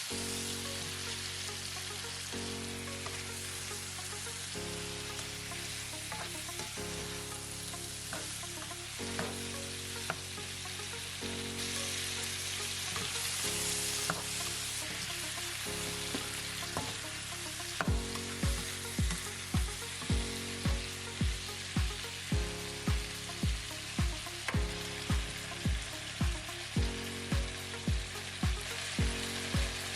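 Food sizzling steadily as it is stir-fried in a pan. Background music plays underneath, with low chords that change every couple of seconds and a steady beat, about two a second, coming in a little past halfway.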